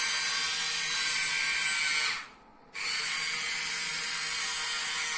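Electric slew motor and gears of a 1/14 Jamara Liebherr RC excavator, a Huina replacement motor, whirring as it turns the upper body. It stops briefly about two seconds in, then starts again.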